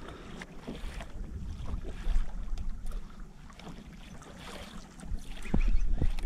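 Wind buffeting the camera microphone and water slapping against a kayak hull, with a louder gust and a couple of sharp knocks about five seconds in.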